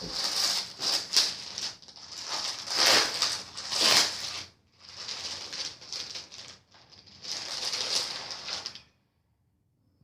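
Plastic packaging crinkling and rustling in uneven bursts as it is handled, stopping about nine seconds in.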